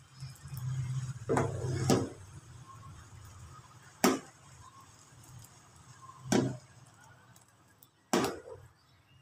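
Steel ladle knocking against a stainless steel saucepan of milky sago kheer while stirring and pouring: five sharp clanks a couple of seconds apart.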